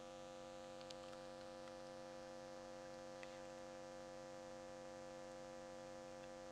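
Faint, steady electrical mains hum, a stack of unchanging tones, with a couple of tiny ticks.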